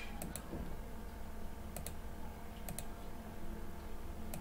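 Clicking at a computer while working in design software: sharp clicks in close pairs, about four times, over a steady low hum.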